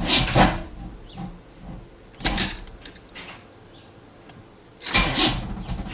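Car starter motor cranking the engine slowly in short attempts that do not catch, typical of a weak battery or a failing starter.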